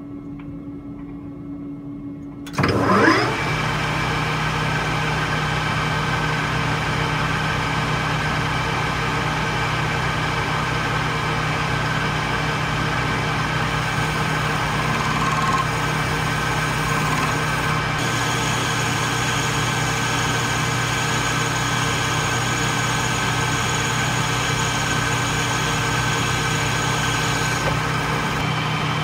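Small benchtop metal lathe starting up about two and a half seconds in, its motor whining up to speed, then running steadily while a carbide insert turns down a metal spindle shaft.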